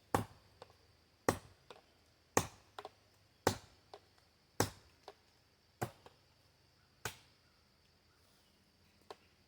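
Ozark Trail hatchet chopping into wood: seven sharp strikes at a steady pace of about one a second, then a pause and one lighter knock near the end.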